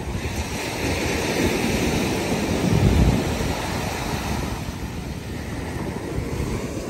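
Ocean surf breaking and washing up onto a sand beach, with wind rumbling on the microphone; the sound swells to its loudest about three seconds in.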